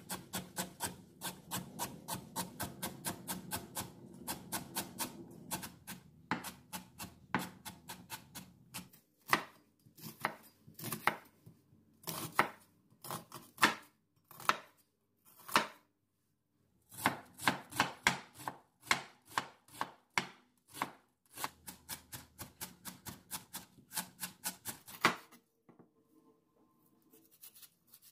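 Kitchen knife chopping vegetables (carrot, then onion) on a wooden cutting board: quick, even strokes at first, then slower, separate cuts, with a short pause midway.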